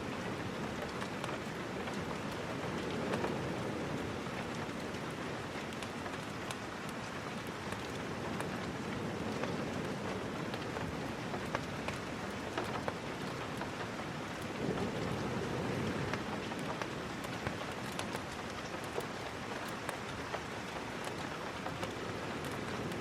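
Steady rain falling. A lower rumble swells and eases every few seconds, and scattered sharp ticks and crackles run through it.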